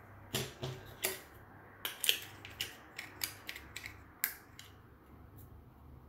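About a dozen sharp, irregular clicks and clacks over four seconds, from an Olympus OM-2n film camera and its 50mm Zuiko lens being handled while the lens cap is worked off.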